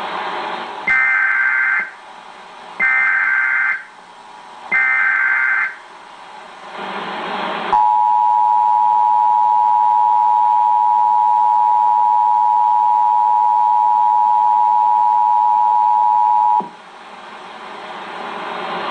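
Emergency Alert System broadcast tones from a television's speaker: three bursts of digital SAME header data, each about a second long and about a second apart. Then the two-tone attention signal, a steady dual tone held for about nine seconds that cuts off suddenly. A steady hiss fills the gaps.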